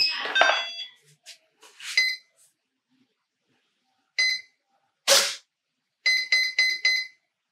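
Power-up beeps from an RC plane's ESC and flight controller as the battery is plugged in. A plug-in clatter with tones at the start, single beeps about two and four seconds in, a short noisy burst around five seconds, then five quick beeps near the end. The builder takes this as a good sign of a normal power-up.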